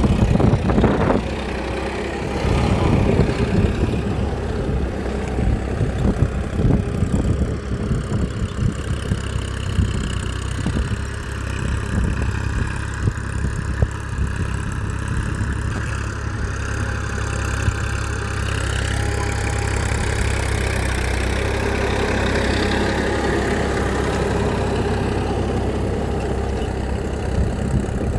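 A small engine or motor running steadily, rougher with irregular clatter over the first several seconds and then settling into an even hum.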